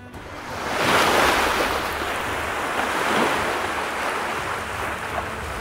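Ocean waves washing, fading in over the first second into a steady rush with slow surges.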